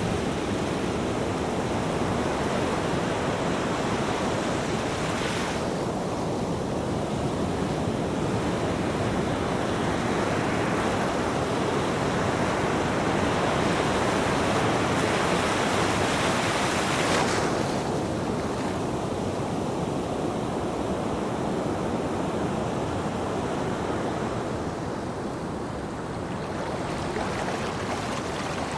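Ocean waves washing onto a beach: a continuous surf, swelling to a hissing peak about two-thirds of the way through that cuts off abruptly.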